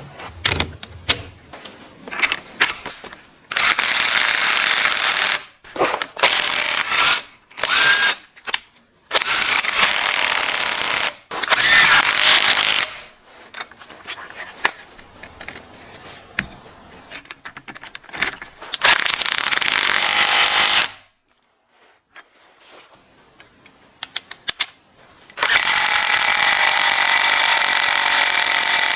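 Makita TW122D cordless driver running in five bursts of a few seconds each, with a rattling, hammering sound, and clicks and knocks of handling between the bursts. The last burst is the longest, about four seconds, with a steady motor whine.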